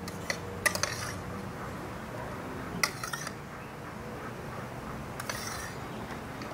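A few short, light clicks and knocks of dishes being handled, over a steady low hum.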